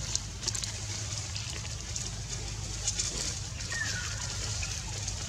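Outdoor ambience: a steady low rumble with scattered faint clicks, and one short falling whistle about four seconds in.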